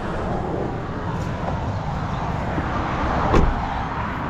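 Car driving, with steady engine and road noise and one short knock a little over three seconds in.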